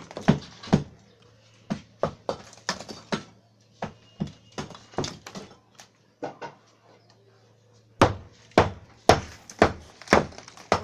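Hammer blows knocking down a brick wall by hand: a run of sharp strikes, two or three a second. The strikes thin out for about two seconds past the middle, then come thick and fast again.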